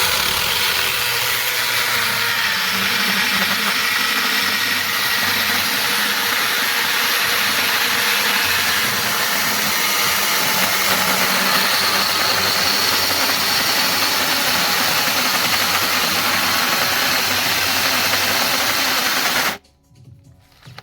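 A small battery-powered mini chainsaw running steadily: its electric motor whirs and the chain hisses for about nineteen seconds, then stops suddenly near the end.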